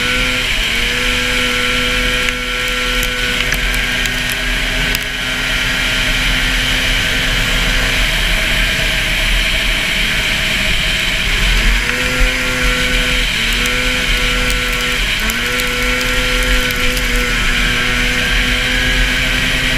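440 super stock racing snowmobile's two-stroke engine running hard at high revs under heavy wind and track rush. The engine note drops away about eight seconds in, climbs back a few seconds later, then dips and recovers twice more.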